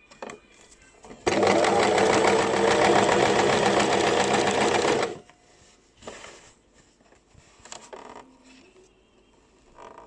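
Basic electric sewing machine running at a steady speed for about four seconds, stitching, then stopping abruptly. A few faint clicks and rustles of fabric handling follow.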